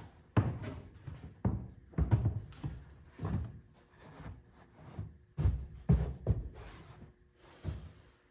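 About ten separate dull thuds and knocks of car parts and tools being handled and set down during reassembly, at irregular spacing.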